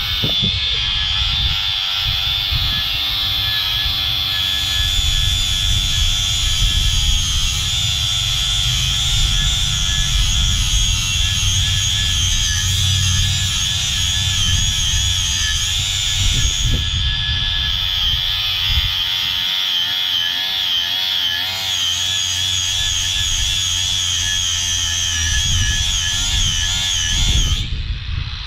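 Harbor Freight Earthquake XT 20V brushless 4½-inch cordless angle grinder running under load, grinding the face of a cast-iron brake rotor. Its high whine wavers as the pressure on the disc changes. Near the end the grinder is lifted off the metal and the sound dips briefly.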